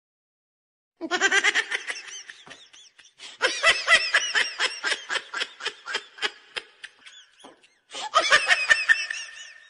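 A person laughing in long runs of quick, repeated ha-ha pulses. It starts suddenly about a second in and breaks off briefly before picking up again near the end.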